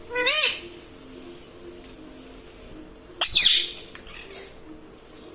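Indian ring-necked parakeet calling twice: a short warbling call just after the start and a louder, sharper call about three seconds later.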